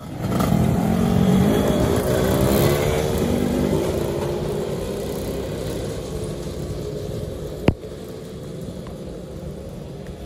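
Motorcycle engine pulling away, its pitch rising over the first couple of seconds, then running steadily and fading as the bike rides off. One sharp click late on.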